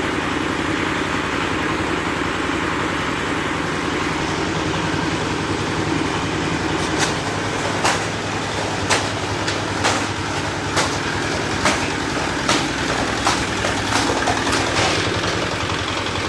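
Bamboo splitting machine running with a steady motor hum; about halfway through, a series of sharp cracks begins, roughly one a second, as bamboo is split.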